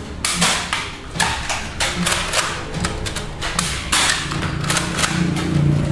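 Nerf foam-dart play: a rapid, irregular run of sharp clacks and thuds. Background music comes in near the end.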